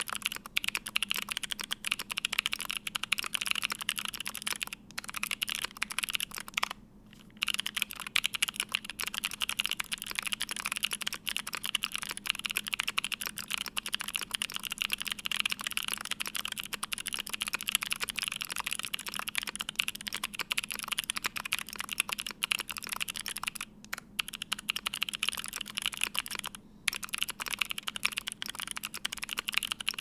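Fast, continuous typing on a Vega mechanical keyboard with stock Kailh Speed Pink linear switches, an aluminium plate, full foam and GMK keycaps: a dense run of key clacks, broken by a brief pause about seven seconds in and a few shorter ones.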